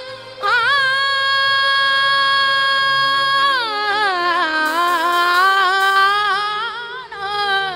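A woman singing a Sufi devotional song solo. After a short break she holds one long high note for about three seconds, then slides down into a lower phrase with quick wavering ornaments.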